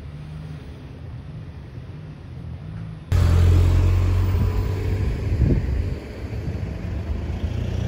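A faint low background hum, then about three seconds in a sudden change to the louder, steady low rumble of a car driving.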